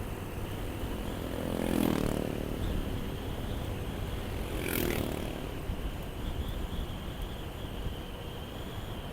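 Motorcycle riding along, its engine and the rush of wind a steady rumble on an action camera. There are two louder swells, about two seconds and five seconds in, as other vehicles pass close by.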